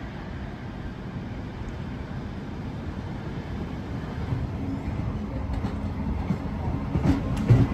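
Heritage NSW 620/720 class diesel railcar set 621/721 running into a station platform, its engine and wheel rumble growing steadily louder as it nears, with a few sharp clicks near the end.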